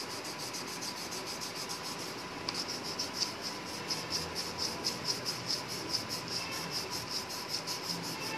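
Coloured pencil rubbing and scratching on paper as green is shaded in. A steady high pulsing, about five pulses a second, runs underneath.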